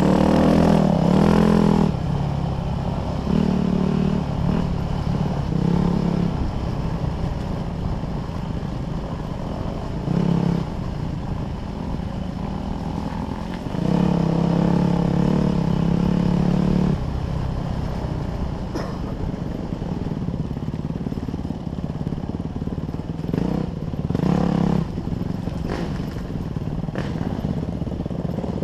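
Dirt bike engine heard from on the bike, the throttle opening in bursts of one to three seconds and easing off in between, with the longest burst about halfway through. Rattling and knocks from the bike going over rough trail run alongside.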